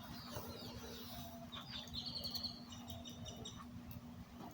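Faint bird chirps and twitters, with a quick run of repeated chirps about two seconds in, over a steady low hum.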